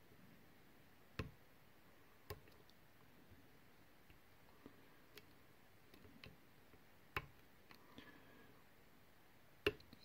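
Brady Safekey lockout padlock being picked: faint, sharp clicks at irregular intervals of a second or two as the pick works the sliders under tension and they set, which the picker calls really nice clicks.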